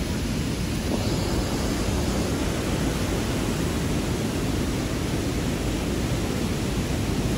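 Steady rush of a rain-swollen river running fast over rocks and a weir, an even roar of water.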